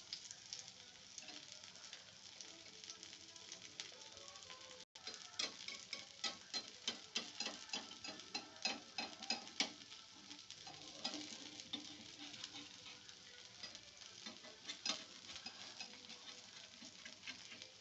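Oil sizzling and crackling around a dosa frying on a hot pan, with rapid irregular pops over a steady hiss. The sound cuts out for an instant about five seconds in.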